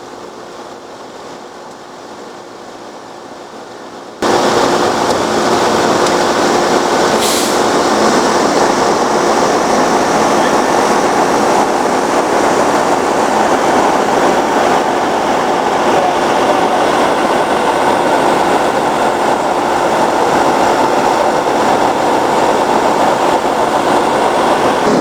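Quiet steady hiss, then about four seconds in a sudden cut to loud, steady mechanical noise with a constant hum, with one short hiss a few seconds after the cut.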